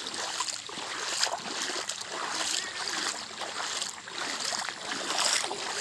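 Footsteps splashing through shallow floodwater on a waterlogged dirt path, a series of soft splashes.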